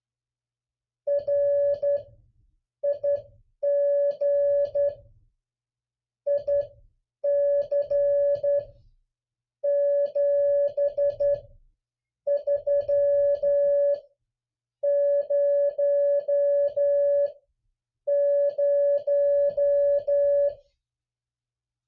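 Morse code (CW) tone: a single steady mid-pitched beep keyed on and off in dits and dahs. It comes in about nine runs of characters with short silent gaps between them, sending one half of a ham radio CW exchange as copy practice.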